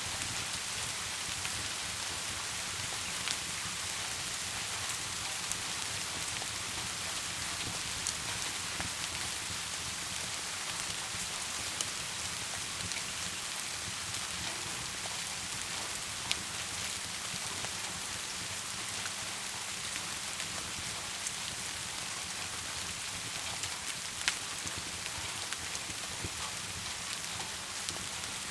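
Steady rain falling on a surface, a dense even hiss, with scattered sharp pops throughout. The loudest pop comes about 24 seconds in.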